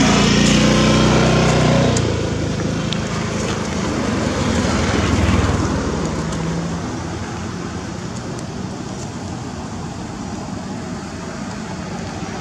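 Motor vehicle engine running close by, with a steady pitched hum that drops away about two seconds in. A second vehicle swells and fades around five seconds in, then steady road noise.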